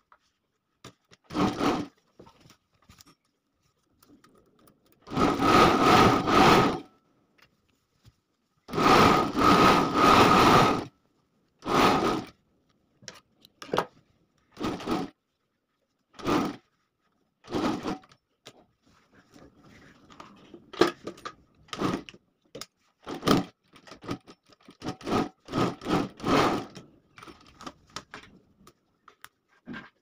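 Industrial sewing machine stitching a zipper onto a jacket, run in stop-start bursts: two longer runs of about two seconds each, then a string of short bursts, with the fabric rustling faintly in the pauses.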